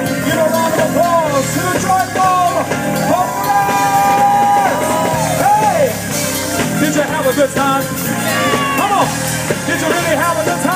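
Gospel vocal group singing live in harmony over band accompaniment with drum kit and keyboard, with long held notes around the middle and sliding vocal runs.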